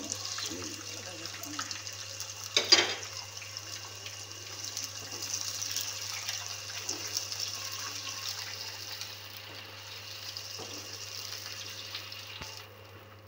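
Sliced onions sizzling in hot oil in a wok while a wooden spatula stirs them, a steady high hiss with one sudden loud burst about two and a half seconds in. The sizzle dies down just before the end, over a steady low hum.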